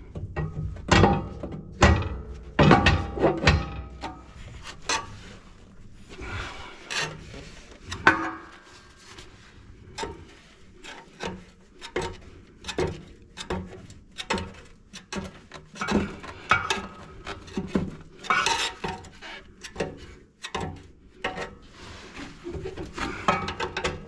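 Irregular knocks, clunks and scraping from a stubborn back brick inside a wood-burning stove's firebox being worked and knocked to free it.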